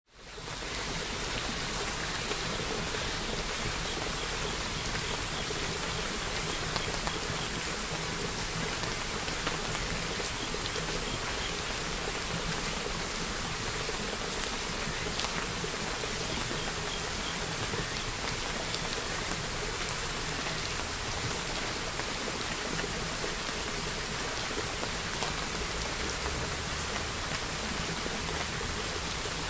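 Steady rain-like hiss with faint scattered patter, fading in at the very start and then holding an even level.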